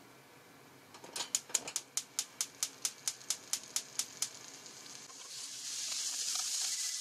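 A stove's igniter clicking rapidly, about five sharp clicks a second for roughly three seconds as the burner is relit. Then a growing sizzle as the frying pan heats back up for stir-frying.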